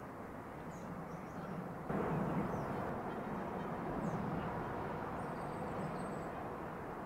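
Outdoor ambience: a steady low rumble with a faint hum, and a few faint bird chirps high above it. The rumble jumps louder about two seconds in.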